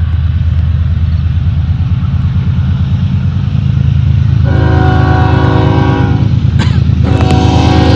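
BNSF freight diesel locomotives approaching with a steady low rumble. The multi-note train horn sounds a long blast from about four and a half seconds in, breaks off briefly near seven seconds, then sounds again.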